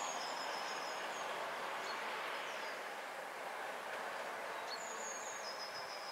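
Class 205 'Thumper' diesel-electric multiple unit's English Electric four-cylinder diesel engine running steadily as the unit stands at the platform, with a bird singing two descending trills.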